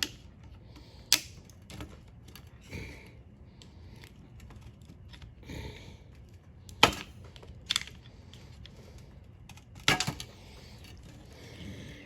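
Sparse, sharp clicks and knocks of hand tools and small parts on a welding positioner's control box, as a stuck potentiometer handle is worked at. The loudest knocks come about seven and ten seconds in.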